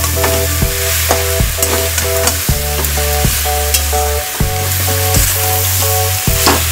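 Fish heads and spices sizzling in hot oil in a metal kadai while a spatula stirs and scrapes through them, with a few sharp scrapes. Background music with a bass line plays alongside.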